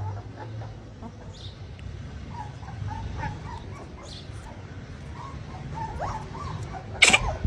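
A dog whimpering in short, faint high whines, then giving one loud bark near the end.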